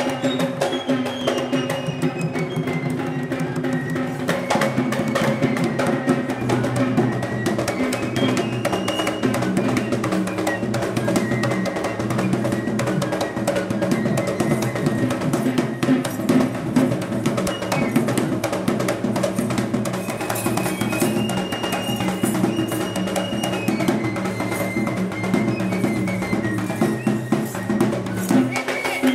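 Traditional Kandyan drums played in fast, continuous rhythm by a group of drummers, with a held melodic tone that steps in pitch above the drumming.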